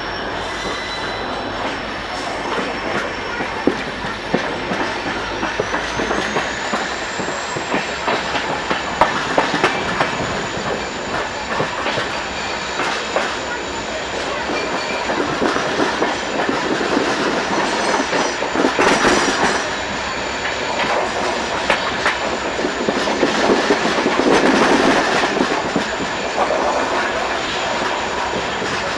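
Train running along the track: a steady rumble with irregular clicks of wheels passing over rail joints.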